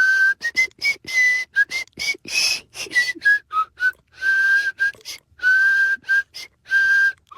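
A person whistling a tune: a string of short and held notes that hop up and down in pitch, with breath audible through the notes.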